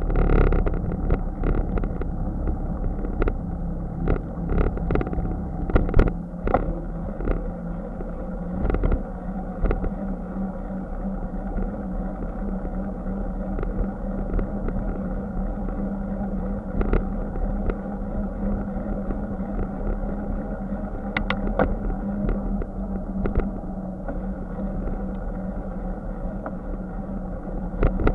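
Bicycle ride heard through a camera mounted on the bike: the tyres clatter over wooden boardwalk planks with many sharp knocks during the first several seconds, then roll on a concrete sidewalk with a steady rumble and a low hum, broken by an occasional knock at the slab joints.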